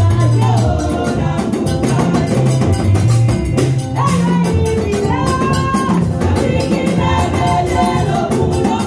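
Amplified gospel praise music: women's voices singing into microphones over a band with a stepped bass line and a quick, steady percussion beat.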